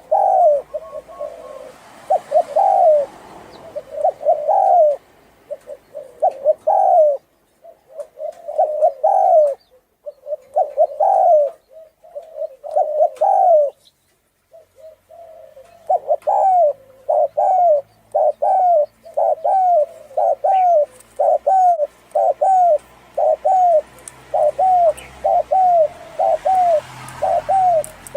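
Spotted dove cooing: a long series of short, arched coo notes, with a pause of about two seconds midway. After the pause the notes come faster and more evenly, a little more than one a second.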